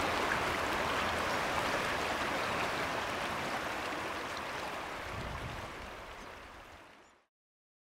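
River water flowing steadily, fading out over the last couple of seconds.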